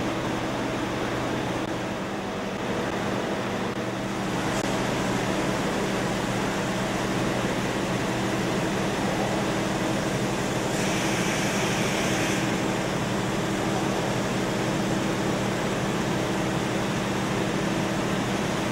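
A machine tool running steadily while machining a valve body: a constant mechanical hum with several held tones. A brief hiss comes in about eleven seconds in and lasts a second or so.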